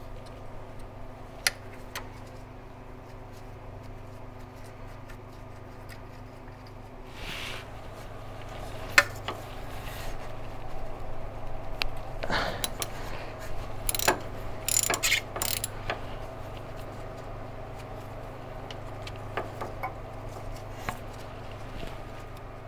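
Ratchet wrench loosening a 7/16 nut in a car's engine bay: scattered single clicks and taps, then a burst of rapid ratcheting clicks just past halfway, over a steady low hum.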